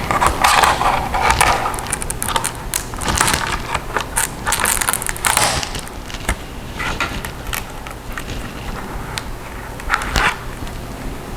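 Dell Latitude E5450 laptop keyboard being pried up out of its retaining clips: irregular bouts of clicking and scraping as it is worked loose.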